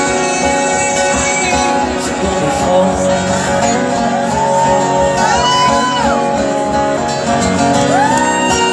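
Live steel-string acoustic guitar strummed steadily, with a man's voice sliding up into and holding long sung notes about four and eight seconds in, near the end of a folk song.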